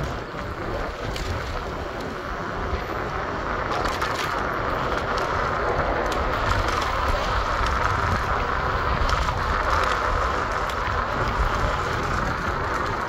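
Wind rushing on the microphone of a moving bicycle, over a steady hum of city street traffic.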